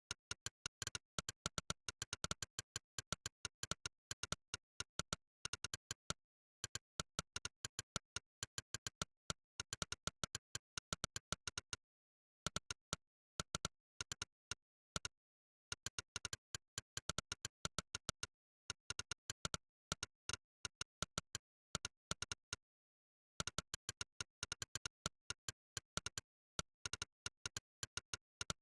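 Monkeytype's 'click' typing sound effect: a sharp synthetic click for each keystroke, several a second in runs of fast typing. The runs are broken by short pauses a few times.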